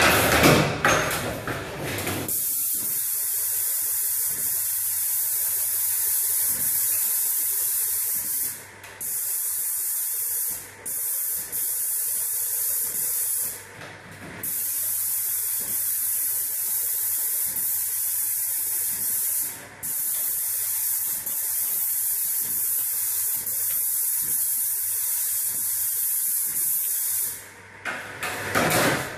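Airless paint spray gun spraying: a steady high hiss of atomised paint, cut off briefly about five times as the trigger is let go between passes. A louder, fuller noise fills the first two seconds and comes back near the end.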